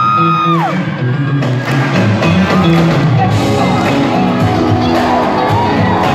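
Pop band playing live in an arena, with bass, electric guitar, keyboards and drums, and the crowd cheering; a high held cry dies away in the first second.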